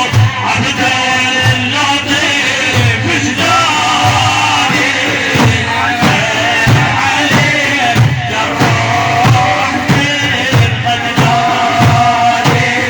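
Middle Eastern religious praise music: a melodic line with some sung or chanted voice over a steady drum beat.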